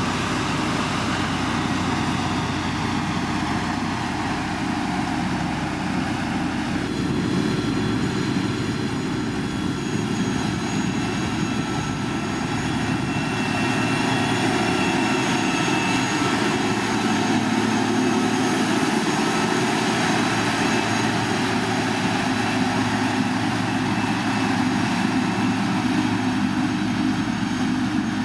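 Diesel engine of heavy road-building machinery running steadily under load, with a shift in its tone about seven seconds in.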